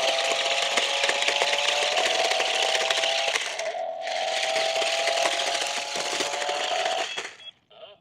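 Toy RC stunt car driving over rough asphalt: its electric drive motors whine steadily while the chunky plastic wheels grind and rattle on the road surface. The sound eases off briefly just under four seconds in and stops a little after seven seconds, when the car comes to rest.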